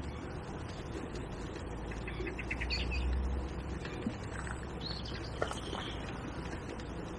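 Small birds chirping in short high calls, a quick cluster about two and a half seconds in and a few more around five to six seconds, over a steady low rumble.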